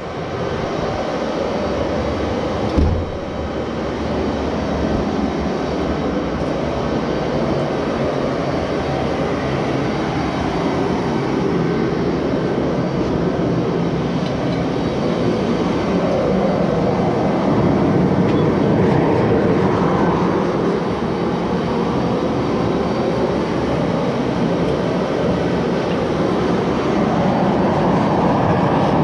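A forge running with a steady, loud rushing noise while a damascus billet heats in it, with a single knock about three seconds in.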